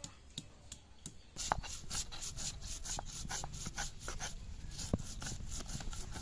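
A stone muller scraped back and forth on a flat grinding stone (Bengali shil-nora), grinding ginger and cumin into a paste. Rapid rhythmic scraping, several strokes a second, starting light and getting louder about a second in.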